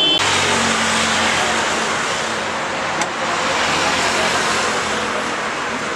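Steady roadside traffic noise, with one sharp click about three seconds in.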